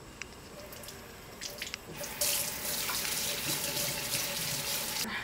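Kitchen faucet turned on about two seconds in, running into the sink for about three seconds while plastic parts are rinsed under it, then shut off just before the end. Before it comes on, a few faint clicks of parts being handled.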